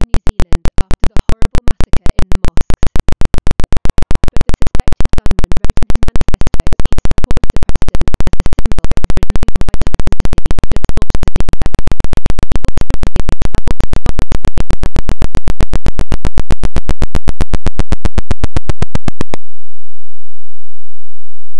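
A loud train of sharp electronic clicks that speeds up steadily until the clicks blur into a buzz, then cuts off suddenly near the end, leaving silence.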